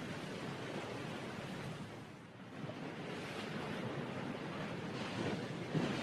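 Steady rushing outdoor noise that swells and fades a little, with a short dip about two seconds in.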